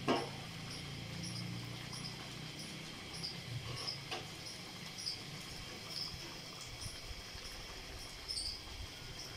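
Faint sizzle and hiss of spice paste cooking in a steel karahi as raw beef chunks are dropped in, with a knock at the start and a few soft knocks of meat landing in the pan. A faint high chirp repeats about twice a second behind it.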